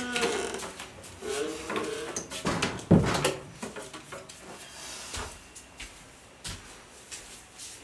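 A room door being pushed open and someone walking in, with a sharp thump about three seconds in and smaller knocks and handling sounds after it.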